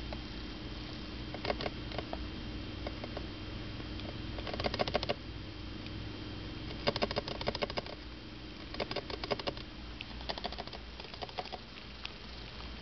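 Roborovski dwarf hamsters scurrying and scratching in loose cage bedding: short spells of quick rustling and crackling, five or six times, over a faint steady hum.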